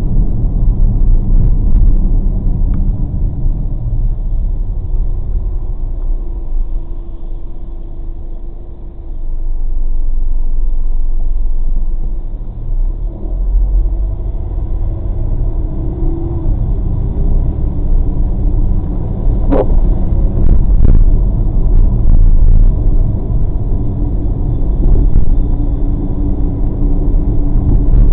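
Car road noise picked up inside the cabin by a dashcam: a steady low rumble of engine and tyres on a wet road. It dips briefly about a third of the way in, and there is one sharp click a little past the middle.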